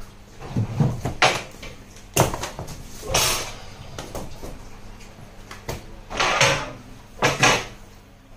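Handling noises of a large reticulated python being held and moved at its glass terrarium: a few sharp knocks and thumps, and about four short rushing, hiss-like bursts of noise.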